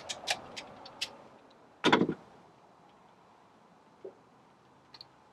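Handling noises: a quick run of sharp clicks and taps, then one louder knock with a scrape about two seconds in, and a couple of faint ticks near the end.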